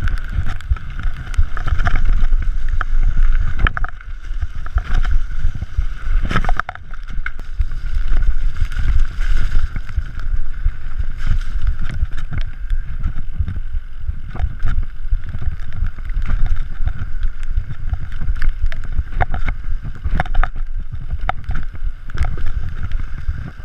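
Mountain bike descending a wet dirt trail fast: wind buffeting the camera's microphone with a heavy rumble of tyres over the ground, a steady whirr, and frequent sharp rattles and knocks from the bike jolting over bumps.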